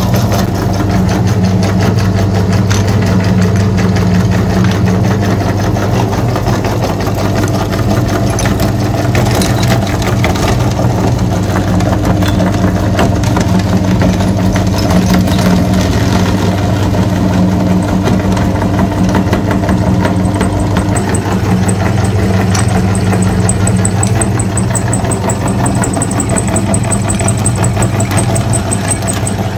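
A motor running steadily at an even pitch, with a low hum and a fine, rapid rattle.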